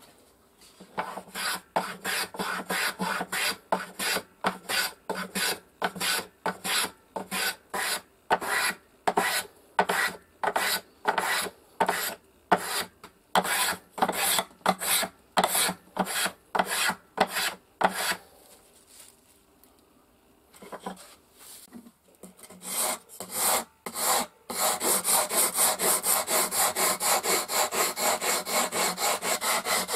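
Wood being abraded by hand in back-and-forth strokes: first a tool worked along the edge of a board, about one and a half strokes a second, then a few scattered quieter strokes, and from about 24 seconds in faster, even strokes of about three a second as a small block is rubbed on sandpaper.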